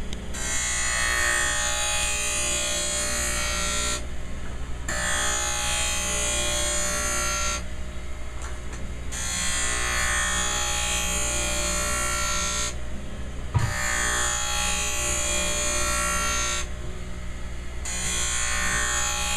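Skate sharpening machine's grinding wheel running with a steady motor hum while a steel skate runner is passed along it: a hissing grind in stretches of a few seconds, broken by short gaps four times, with a single knock about two-thirds of the way through. These are the finishing passes after the wheel adjustments.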